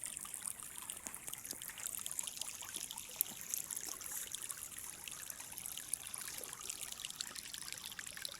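Small river flowing over rocks: a steady babbling and trickling of water, with many small splashes.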